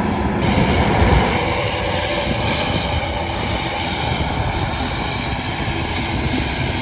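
Airliner engines running steadily, with a faint steady whine above a dense rumble, heard through wind buffeting on the microphone.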